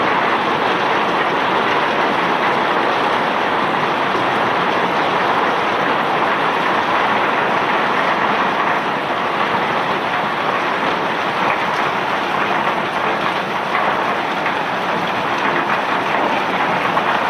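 Bulk rock cargo pouring off a self-unloading barge's discharge conveyor, a steady, even rushing noise with a fine crackle of stones.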